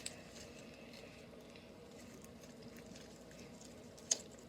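Faint handling of homemade slime: a soft patter of small sticky clicks and squishes, with one sharper click about four seconds in.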